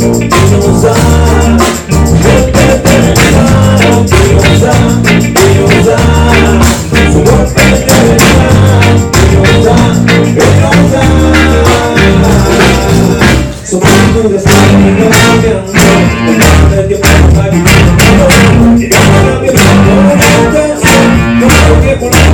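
Reggae band playing a song at full volume, with bass and drums carrying a steady beat under guitar and keyboards.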